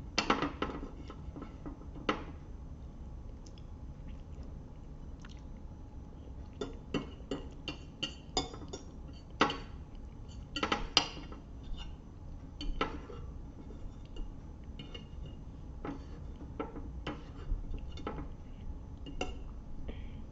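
Fork clinking and scraping against dishes during a meal: scattered light clicks, with a few louder clinks now and then.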